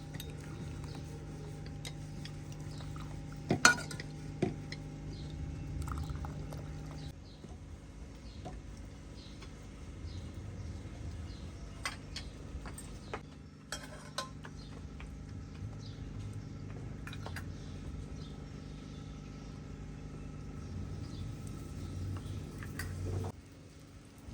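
Metal utensils and dishes clinking and knocking now and then, the loudest clink a little after three seconds in, over a steady low hum that drops away about seven seconds in.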